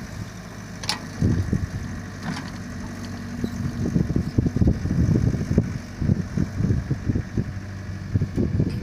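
Volvo 55W wheeled excavator's diesel engine running steadily, with a string of irregular low thuds and a few sharp clicks as it works the soil.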